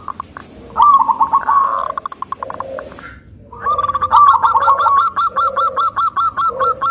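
Zebra dove (perkutut) calling: rapid trains of short staccato coos, a brief run about a second in and a longer, even run of about five notes a second from about halfway, with softer, lower coos sounding in between.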